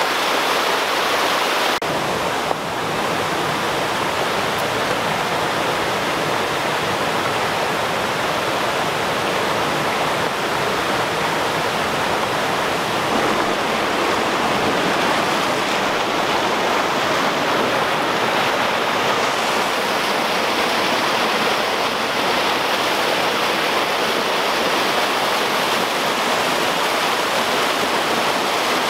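Rocky mountain creek rushing and splashing over boulders in small cascades: a steady roar of running water.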